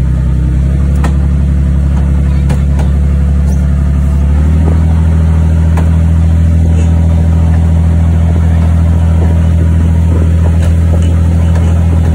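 Parasail tow boat's engine running steadily with a deep hum that steps up in pitch and level about four seconds in, while the riders are winched down to the deck. A few faint knocks are heard over it.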